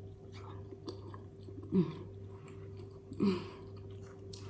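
Close-miked chewing and wet mouth sounds of a person eating, with two brief pitched vocal sounds falling in pitch, about two and three seconds in.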